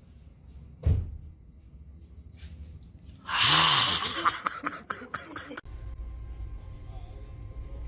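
A dull thump about a second in, then a loud, breathy cry from a startled person a little over three seconds in, rising and falling in pitch and tailing off over about two seconds; the sound then cuts off abruptly.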